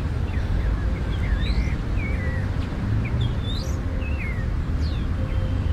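Small birds chirping: about a dozen short, quick rising and falling chirps, over a steady low outdoor rumble.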